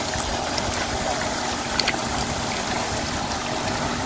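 Steady rush of pond water with a low motor hum under it and a few scattered small clicks.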